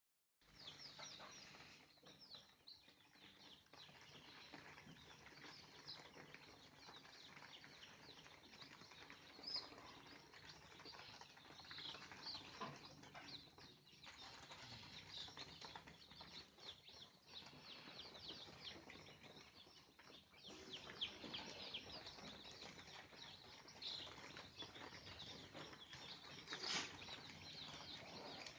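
A flock of chickens chirping and calling continuously: many short, high chirps overlapping throughout, with a few louder calls standing out, such as about two-thirds of the way in.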